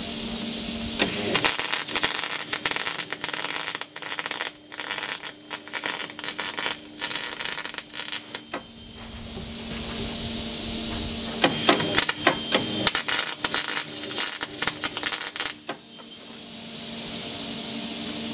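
MIG welder arc crackling in two runs, about seven and four seconds long, as a stainless bung is welded into a mild steel plate with 309LSI stainless wire. A steady hum and hiss fill the pauses before, between and after the two runs.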